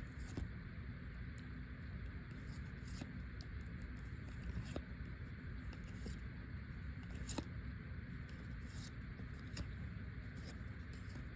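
Trading cards being flipped through by hand: scattered soft clicks and brief swishes of card sliding against card, at irregular intervals over a steady low background hum.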